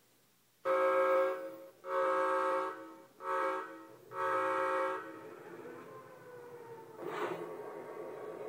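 Digitrax N-scale sound decoder playing its factory SD40-2 diesel locomotive sounds through a small speaker: four horn blasts, long, long, short, long, the grade-crossing signal. After them a quieter steady engine sound runs on, with a brief hiss about seven seconds in.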